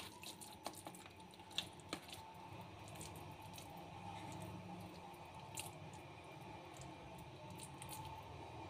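Faint squishing of hands squeezing and kneading a grated-potato kabab mixture in a plastic bowl, with a few light clicks.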